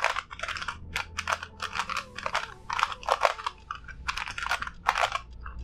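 A new QiYi Sail 6 cm 3x3 speed cube being turned for the first time out of the box: quick, irregular plastic clicks and clacks of its layers turning, several a second.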